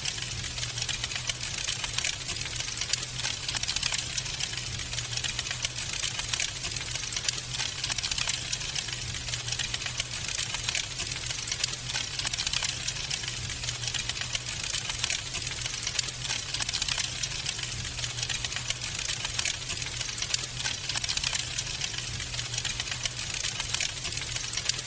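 Wood fire crackling steadily in a fireplace, with a dense run of small pops and snaps over a low, steady hum.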